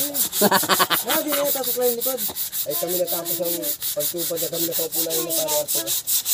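Fast, even back-and-forth rubbing strokes on the wood of a bolo scabbard as it is smoothed by hand, about seven strokes a second.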